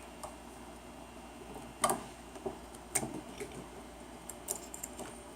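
A few sharp clicks and taps as an Allen key levers an extruder spring over onto its bolt. The loudest comes about two seconds in and another a second later, with lighter ticks after.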